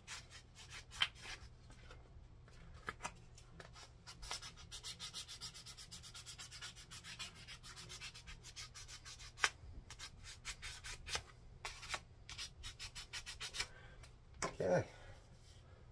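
Sandpaper rubbed by hand along a wooden hammer handle in quick back-and-forth strokes, smoothing the old wood. The strokes are sparse at first and then come in a fast, steady run, with a couple of sharp taps and a short louder sound near the end.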